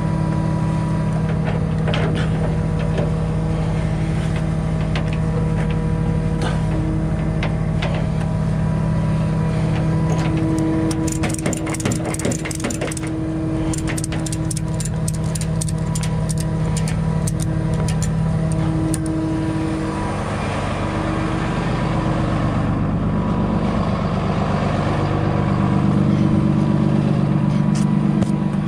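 Tow truck's engine running steadily, with a run of rapid clicking about ten seconds in that lasts several seconds. The engine grows louder near the end.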